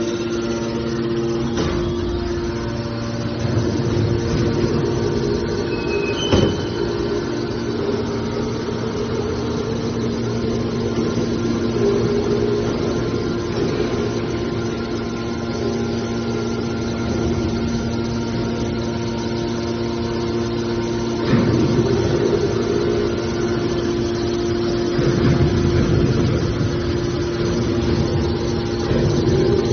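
Scrap metal baler running: a steady machine hum, with a sharp knock about six seconds in and louder surges of metal noise about two-thirds of the way through and again near the end.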